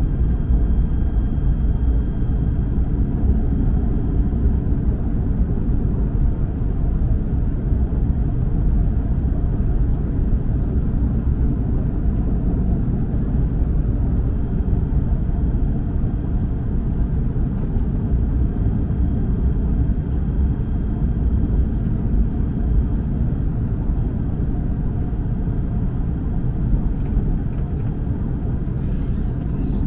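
Steady low rumble of a KTM ETS Class 93 electric multiple unit running on the line, heard from inside the passenger cabin.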